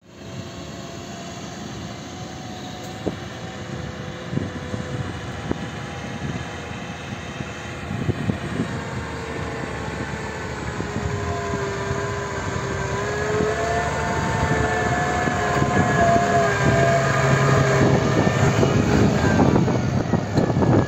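Tractor's diesel engine running steadily under load while it pulls a plough through the soil, a drone with tones that waver slightly in pitch. It grows steadily louder as the tractor approaches.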